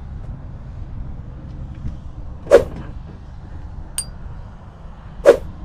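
Two heavy thumps about two and a half seconds apart as someone climbs up into a semi truck's cab, with a small metallic clink between them. A steady low rumble runs underneath.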